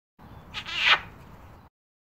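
Short cartoon sound effect: a high, wavering tone that slides downward, loudest about a second in, starting and stopping abruptly.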